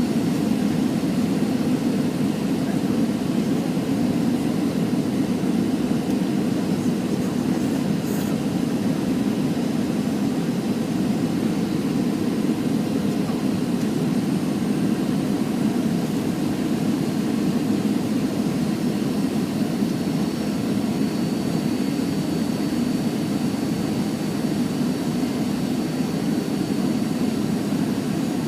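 Steady jet engine and airflow rush heard inside the passenger cabin of a Boeing 737 in flight. It is an even, low roar with no change in level, and a faint high whine comes in during the last third.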